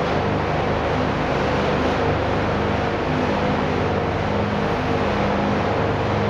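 Steady machine drone: a constant low hum with a few held tones under an even hiss, with no change in level.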